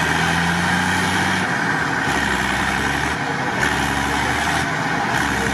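Unimog truck's diesel engine running steadily at low revs while stuck in deep mud, its low hum dropping away briefly a few times.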